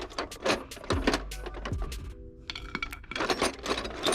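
Metal hand tools and sockets clinking and rattling, a quick series of sharp clinks as someone rummages through a toolbox for the right socket.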